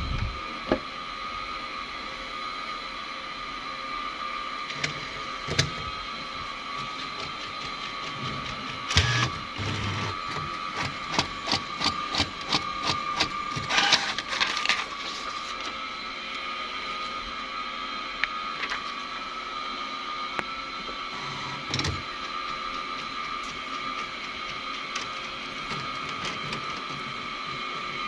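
Brother printer running, with a steady high whine under scattered clicks and knocks, and a stretch of rapid clicking in the middle.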